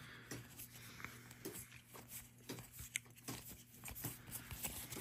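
Foil Magic: The Gathering cards sliding and clicking against one another as they are flipped through in the hand: faint, irregular light clicks.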